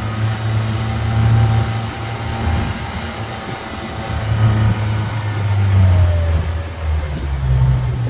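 Outboard motor of a crabbing skiff running steadily under way, its pitch wavering a little and stepping up near the end.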